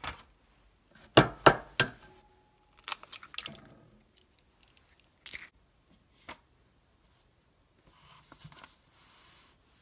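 An egg is tapped three times, sharply, on the rim of a stainless steel bowl and cracked open, shell pieces clicking as it is pulled apart; a few single clicks follow, and near the end there is a soft rustle of notebook paper being handled.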